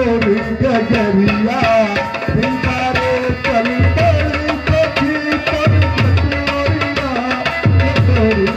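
Live devotional bhajan music: tabla drumming a steady rhythm, with deep drum strokes about every two seconds, under a sliding, wavering melody line.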